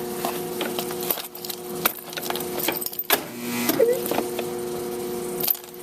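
Starter cranking the Craftsman lawn tractor's 20 HP Briggs & Stratton engine in short tries without it firing, its weak battery boosted by a charger, over a steady hum.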